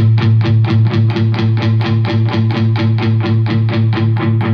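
Electric guitar playing a fast, even run of picked notes, about six a second, over a repeated low note. Its tone is shaped by the high-pass and low-pass filters of a Carl Martin Contour & Boost pedal.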